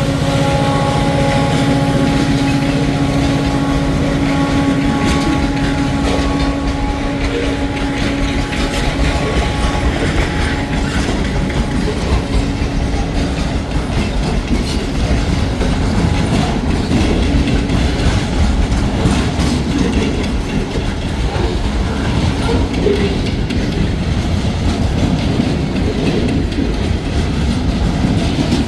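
Escanaba & Lake Superior freight train passing close by: a steady locomotive tone for the first several seconds fades out by about ten seconds in, leaving the rail cars rolling past with steady wheel clatter over the rails.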